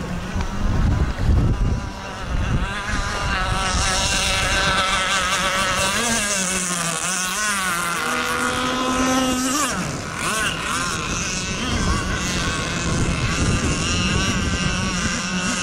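Radio-controlled model racing boat engines running at high revs, their pitch wavering and sliding up and down as the boats race and turn. Wind buffets the microphone in the first couple of seconds.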